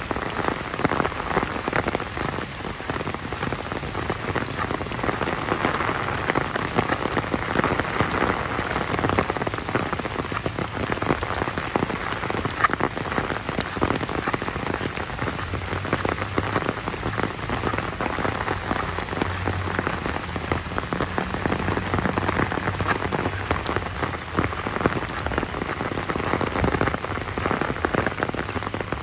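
Steady rain falling, a dense, unbroken patter of drops hitting hard surfaces close by.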